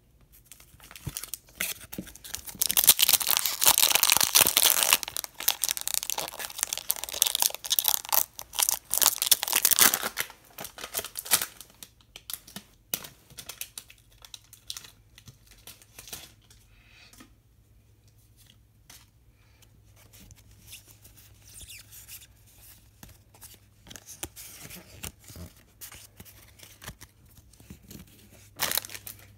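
A Pokémon booster pack's foil wrapper being torn open and crinkled, loudest through the first ten seconds or so. After that come softer rustles and small clicks of the cards being handled, with one brief loud crinkle near the end.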